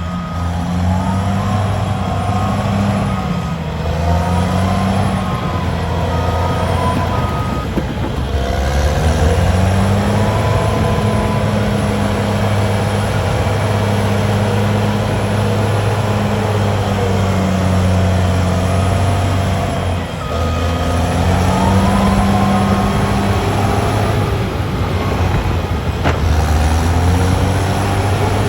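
Heavy diesel engine working under load, its pitch rising and falling several times as it revs up and eases off. A reversing beeper sounds in regular pulses for the first seven seconds or so.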